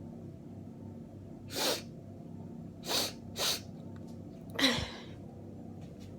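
A person with a head cold sneezing four times in a rapid fit: one sneeze about a second and a half in, two close together around three seconds, and a last, loudest one near five seconds.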